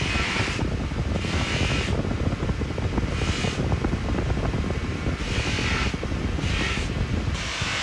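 Bench buffing machine's motor and spindle running with a steady rumble, with six short hisses, a second or two apart, as a stainless steel padlock body is pressed against the spinning buffing wheel to polish it.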